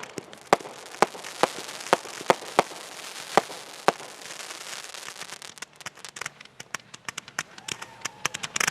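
Fireworks going off: a string of sharp bangs through the first four seconds, then a rapid run of smaller crackling pops, thickening into a dense burst near the end.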